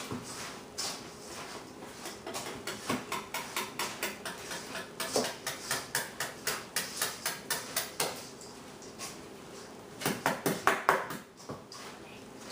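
A spoon stirring sticky marshmallow-coated Rice Krispies in a mixing bowl: a run of quick, irregular clicks and knocks of the spoon against the bowl, pausing briefly near the end and then starting again.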